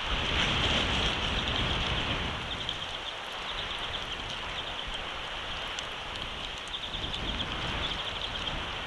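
Steady rain with wind buffeting an outdoor nest camera's microphone, a little stronger in the first couple of seconds.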